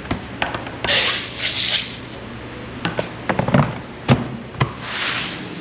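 Dry fish-feed pellets being scooped from a plastic bin and poured, making a rushing hiss twice, about a second in and near the end. In between, a run of sharp plastic knocks and clicks as the bin and its lid are handled.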